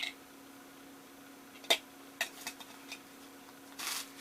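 Handling of Funko Soda collectible packaging: a sharp click, a few light ticks, then a short rustle near the end, over a faint steady hum.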